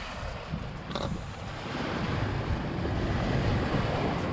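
Wind buffeting the microphone as a steady low rumble, with surf washing against the rocky shoreline, growing a little louder partway through.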